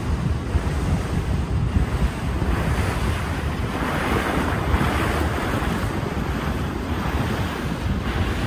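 Wind buffeting the microphone over the rushing wash of water along a moving ferry's hull, gusty and unbroken, with the water's hiss swelling about halfway through.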